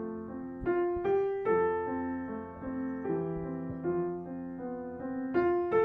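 Background piano music: a melody of sustained notes and chords, with a few louder notes struck near the start and near the end.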